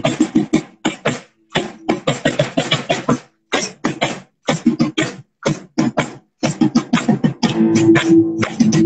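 Live band playing: a drum kit struck in quick, busy patterns with a guitar holding low notes underneath. The sound drops out briefly between groups of hits.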